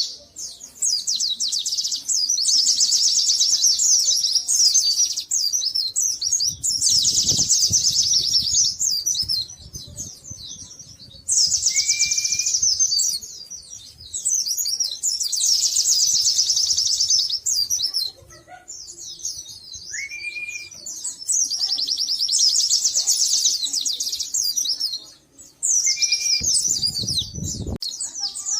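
Pleci (white-eye) songbirds singing in a song duel: long, very fast, high trilling phrases of several seconds each, repeated bout after bout with short gaps. A short rising whistle recurs between phrases, and a low rumble sounds briefly twice.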